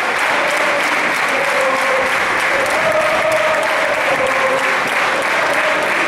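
Crowd applauding and cheering steadily, a dense mass of clapping with voices mixed in.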